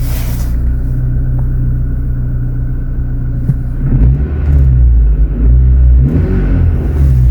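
Nissan Micra K12's engine running steadily after starting, then revved briefly twice, about four and six seconds in.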